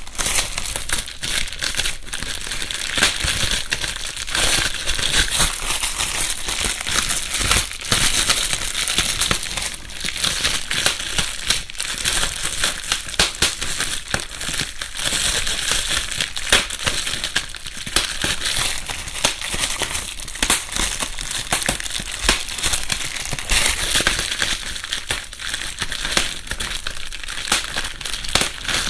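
Plastic bubble wrap being crumpled and squeezed by hand: continuous rustling, dense with sharp pops and crackles.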